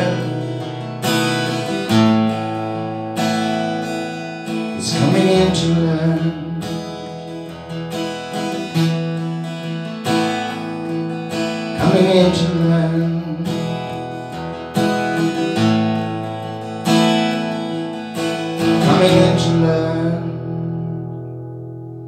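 Acoustic guitar strumming slow chords, a strum every second or two, closing out a song; the last chord rings on and fades away near the end.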